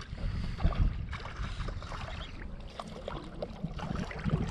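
Wind buffeting the microphone, with light, irregular splashing of shallow water.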